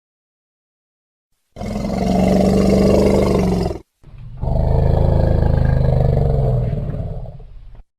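Wild elephant giving two long, deep calls, the first about two seconds long, the second longer after a brief break.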